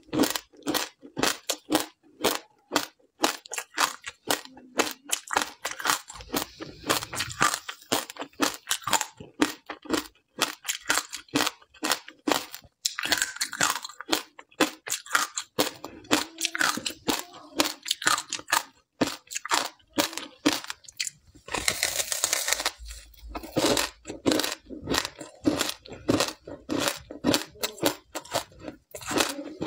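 Close-miked biting and chewing of a thin frozen ice sheet coated in matcha powder, milk powder and sesame seeds: a fast, continuous run of sharp crunches, with a longer crackling stretch about two-thirds of the way through.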